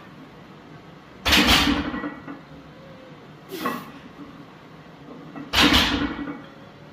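Plate-loaded barbell set down onto a power rack's safety arms twice during rack pulls, each a heavy metallic clank with a deep thud and ringing. A lighter clank comes between them as the bar is lifted off the arms.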